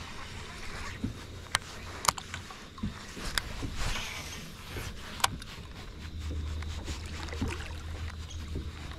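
Handling sounds aboard a fishing boat during a slow retrieve: a few sharp clicks and knocks over a noisy background, with a steady low hum that gets louder about six seconds in.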